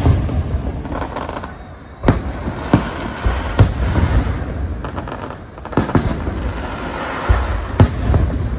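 Aerial fireworks bursting overhead in a string of loud bangs, about one every second, with low rumbling echo between them.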